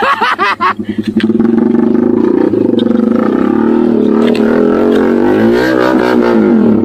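Honda EX5 underbone motorcycle's single-cylinder four-stroke engine running while riding, its pitch rising and falling with the throttle in the second half.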